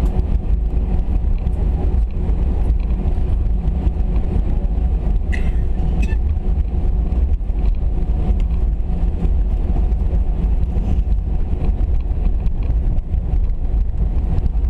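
Steady low rumble inside the cabin of an Airbus A319 on the ground before takeoff, with a faint steady hum and a few brief high tones about five seconds in.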